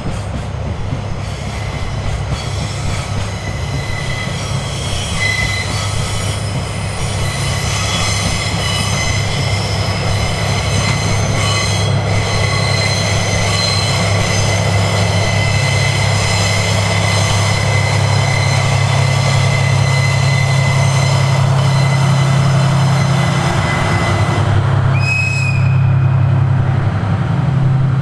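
Diesel train running past, its engine giving a steady low drone that grows slowly louder, with high wheel-flange squeal from the curving track over it and a brief sharper squeal near the end.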